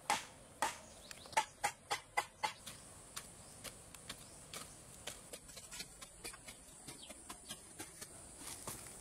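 Hand-held digging tools striking hard-packed dirt: a quick run of sharp knocks about two or three a second at first, then fainter, scattered taps and scrapes.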